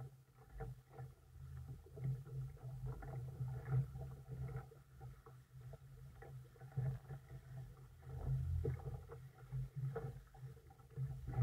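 Choppy water lapping and slapping close by: an irregular run of soft splashes and small knocks.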